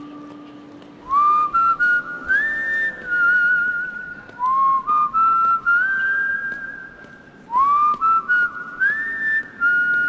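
A whistled melody in three phrases. Each phrase opens with an upward slide into a held note, and the notes waver in pitch.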